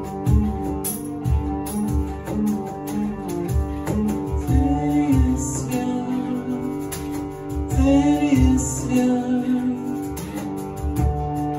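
Hurdy-gurdy playing a melody over its steady drone strings, with a cajon thumping out a regular beat underneath. A man's voice sings a couple of short phrases around the middle.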